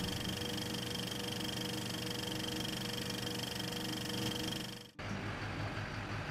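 Film projector running, a steady mechanical whirr with a fast even clatter, which cuts off abruptly about five seconds in; a low steady hum follows.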